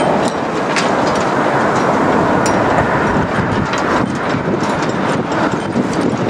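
Arriving jet airliner's engine noise, a steady loud rush with no clear pitch, with scattered short clicks over it.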